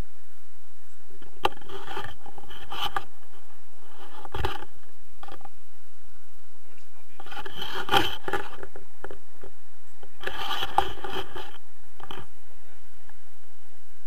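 Handling noise on an action camera: fabric and harness straps rubbing and scraping against the camera in several irregular bursts, with a few sharp clicks.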